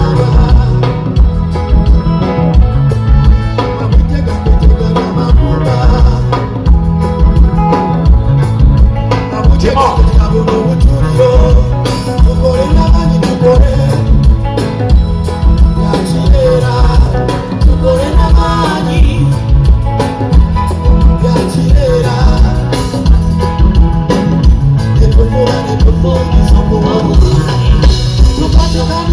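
Live band music played loud through a stage PA system: heavy bass and drums keeping a steady beat, with a wavering melody line that may be a voice.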